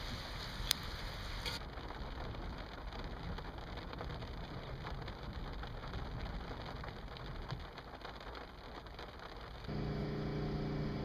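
Steady hiss of water, like rain on a wet surface, with faint scattered ticks. Near the end a steady motor hum with several pitches sets in abruptly, typical of a running water pump or engine.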